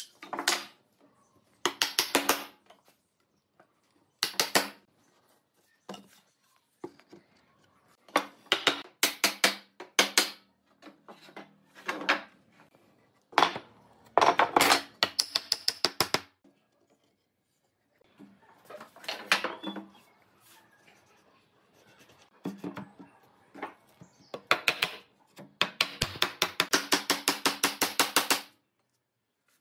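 Bursts of rapid, sharp metallic taps and clinks from hand-tool work. The longest run comes near the end, at about eight taps a second.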